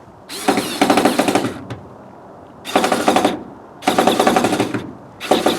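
Cordless power driver run in four bursts, driving screws into the van's sheet-metal window panel; each burst is a fast rattling whine, the first the longest.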